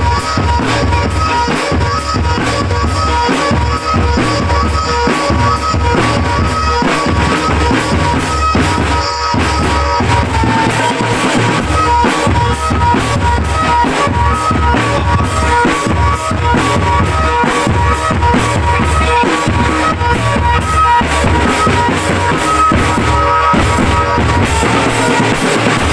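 Marching drum band playing a steady, driving rhythm on bass drums and snare drums, with short repeated high melody notes over the beat.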